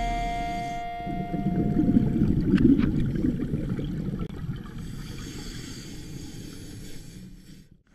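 Muffled, low water rumble picked up by an underwater camera in its housing, as background music fades out over the first couple of seconds.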